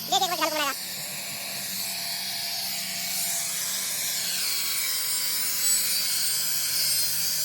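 Angle grinder running and cutting into a steel exhaust pipe, a steady motor hum with a harsh high hiss that grows about three seconds in as the disc bites into the metal.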